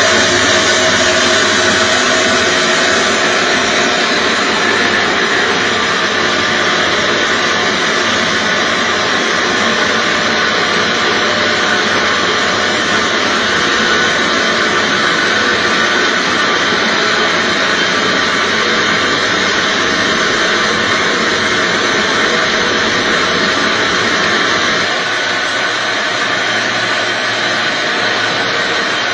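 Lotus seed coring machine, which drills the germ out of lotus seeds, running steadily: a loud, even mechanical noise with several steady tones, a little quieter near the end.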